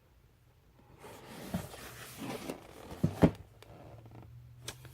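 A cardboard Lego set box being handled, with rustling and a few short knocks and clicks; the sharpest knocks come about three seconds in.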